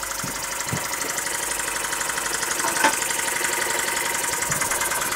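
Court Lodge MK1 model steam engine running fast: a rapid, even chuff of exhaust steam that grows slightly louder, with one sharp click about three seconds in.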